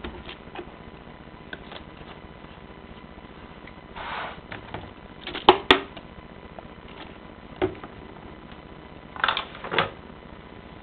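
A Bauknecht washing machine and an mkm tumble dryer running together: a steady machine hum, with laundry tumbling in a drum, giving irregular swishes and a few sharp clicks such as buttons or zips striking the drum.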